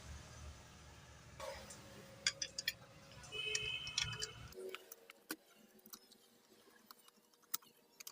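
Small metal clicks and taps of ceiling fan parts being handled and fitted back together by hand, with a brief metallic ring about three and a half seconds in.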